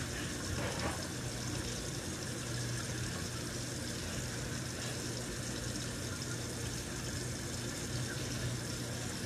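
A steady rushing noise over a low hum, like water running or a fan.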